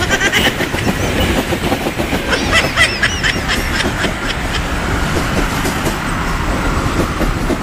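Continuous rumble of passing vehicles, with a few short high squeaks about two and a half to three seconds in.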